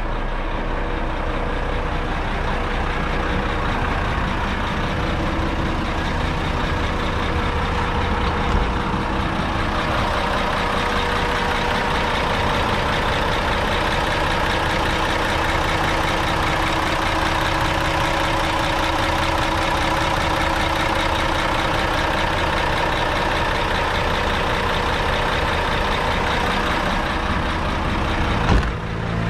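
Volvo B11R coach's six-cylinder diesel engine idling steadily, heard through the open rear engine bay. A single thump near the end.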